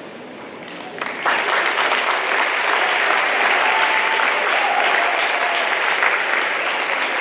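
Audience applauding, breaking out about a second in and holding steady.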